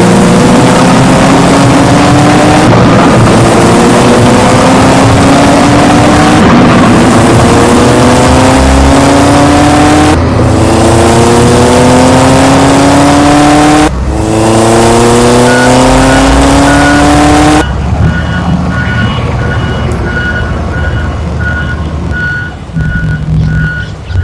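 A vehicle engine rising steadily in pitch, over and over, each rise cut off abruptly after a few seconds. Then come evenly spaced high beeps of a reversing alarm, which begin faintly while the last rise is still going and take over when the engine sound drops away.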